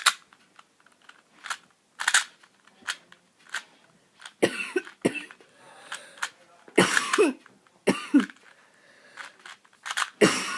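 Cyclone Boys 2x2 speed cube being turned in a solve, its plastic layers making quick sharp clicks. A person coughs loudly several times over the turning.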